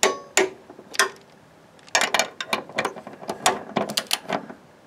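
Ratcheting torque wrench clicking as a 13 mm crossmember bolt is tightened toward 25 Nm: a few single clicks at first, then a quick run of ratchet clicks from about two seconds in.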